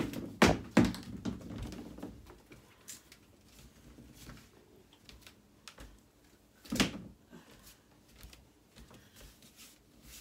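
Handling noise of shoes being picked up and set down: a quick cluster of knocks and clatters at the start, scattered light taps, and one sharper knock about seven seconds in.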